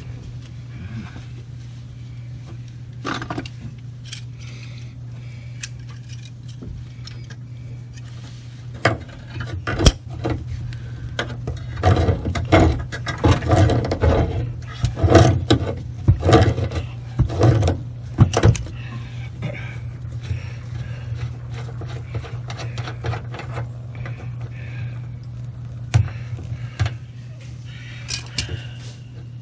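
A wrench clinking and scraping on the brass packing nut of an old gate valve as the nut is loosened and taken off the stem. The sharp metallic clicks come thick from about a third of the way in to past the middle, over a steady low hum.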